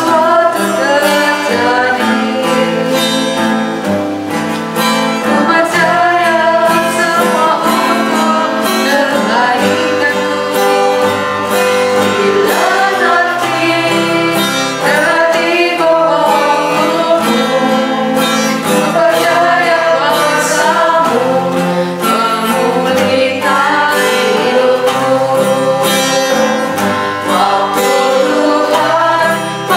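A woman singing a slow worship song in Indonesian over a guitar accompaniment.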